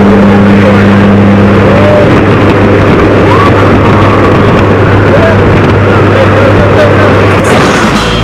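Loud, steady aircraft engine and wind noise inside a skydiving jump plane's cabin with the door open, a constant low drone under a dense rush. Faint shouting voices come through it.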